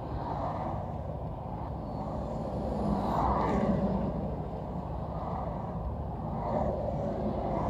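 Interstate traffic passing close by, a steady rumble of tyres and engines, swelling about three seconds in as a vehicle goes past.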